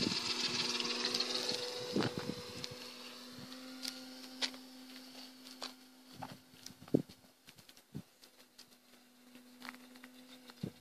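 Motor and propeller of a flying radio-controlled model PCA-2 autogyro whining high overhead, the pitch dipping and rising as it passes, then fading in the first few seconds. A faint steady low hum and a few scattered clicks follow.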